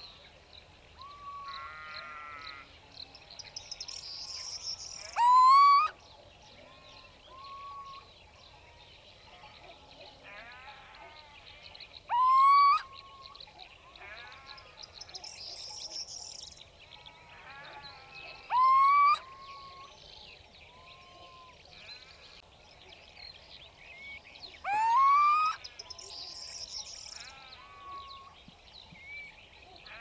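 Little owl (Athene noctua) calling: a loud, drawn-out note rising in pitch, repeated four times about every six to seven seconds, with fainter short calls between.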